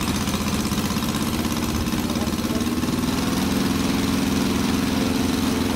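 Quarter-scale model four-cylinder inline aircraft engine running steadily on its test stand, its revs picking up a little about three seconds in.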